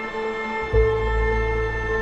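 Background music of slow, held tones, with a deep bass note coming in under a second in.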